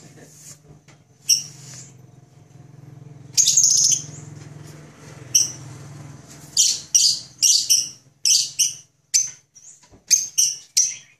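Cockatiels calling with short, high-pitched chirps: a few scattered calls at first, then a quick run of about two chirps a second from about six seconds in. A faint low hum lies underneath and stops near the end.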